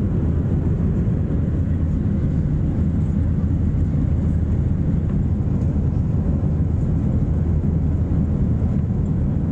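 Steady low noise of an airliner's jet engines and rushing air heard from inside the passenger cabin while the plane climbs out just after takeoff.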